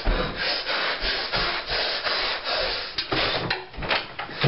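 Rough rustling and rubbing of a bed quilt being thrown back and dragged across the bed, in a run of quick uneven strokes.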